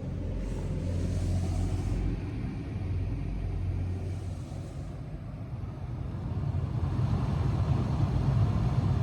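Newly replaced air-conditioning blower fan of a Honda Freed Spike Hybrid running: a steady low rumble with an airflow hiss that swells twice, in the first two seconds and again around four seconds in.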